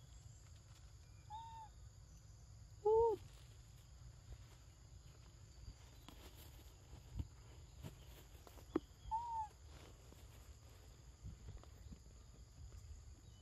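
Three short, arched coo calls from a young macaque, the second the loudest, over a steady high insect drone.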